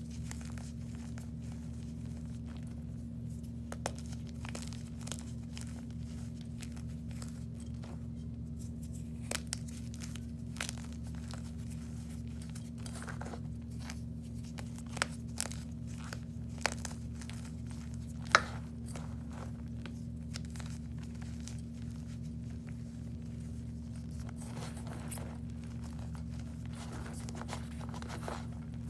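Scattered crinkling and crackling handling sounds with a few sharp clicks, over a steady low hum.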